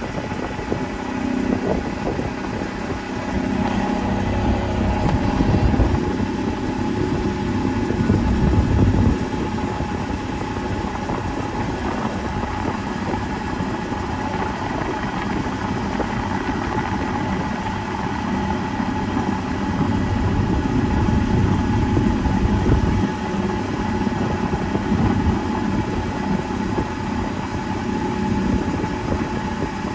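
A boat's engine running steadily while under way, with a constant hum and a low rumble that swells a few seconds in and again about two-thirds of the way through.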